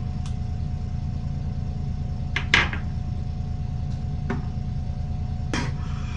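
Steady low hum with about five short, sharp clicks and knocks scattered over it, the loudest about two and a half seconds in.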